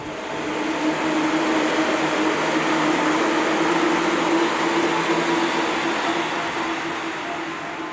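Electric commuter train running along the platform: a loud rumble of wheels on rail with a steady motor hum, swelling about half a second in and fading away toward the end.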